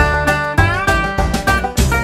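Background music: an upbeat country-style tune with plucked string instruments, some notes bent upward, over a steady beat.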